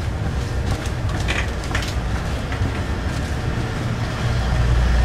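Amtrak sleeping car running along the track, heard from inside the car as a steady low rumble with a few short clicks and rattles about a second in. The rumble grows louder near the end.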